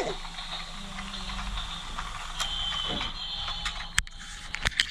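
Battery-powered toy train's small motor and gears whirring steadily as it runs along plastic track. A sharp click about four seconds in and two more near the end come as the train is handled.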